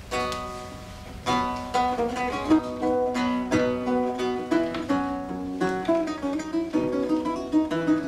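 Music on a plucked string instrument: one note opens it, then from about a second in a continuous melody of plucked notes begins.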